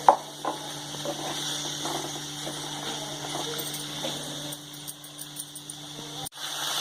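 Chicken pieces and onions sizzling in hot oil in a pan: a steady hiss with a low hum beneath it.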